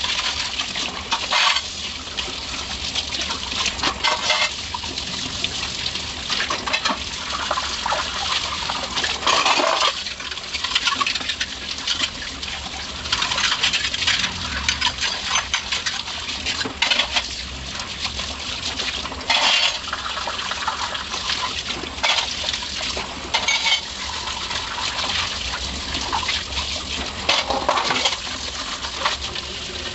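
Tap water running into a stainless-steel sink while steel cutlery, tongs and plates are rinsed by hand, with frequent metallic clinks and clatters as the steel utensils knock together.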